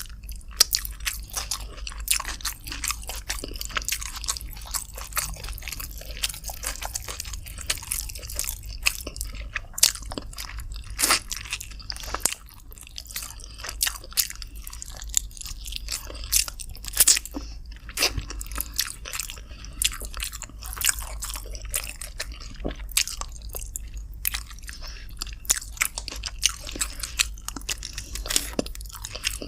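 Close-miked eating sounds: a person chewing and biting chicken with rice, with wet mouth smacks and many irregular crisp clicks over a low steady hum.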